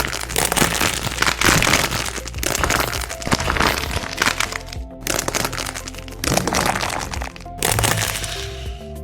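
Dense crackling and crunching, many sharp cracks in quick succession with short breaks, over soft background music.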